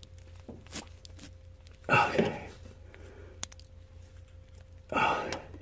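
Light metallic clicks and scrapes of a thermostat and housing bolts being handled and fitted on an engine, with two louder short sounds about two seconds in and again near the end, over a faint low hum.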